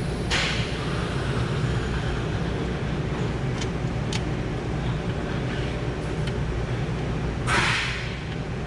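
Steady low workshop hum with a few light clicks and a short scraping rustle near the end, as a brake caliper is handled and worked over its new pads.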